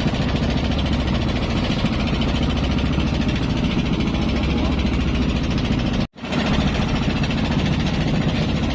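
Engine running steadily aboard a basnig fishing boat, a constant low hum with a noisy upper rattle. The sound drops out for a split second about six seconds in, then resumes unchanged.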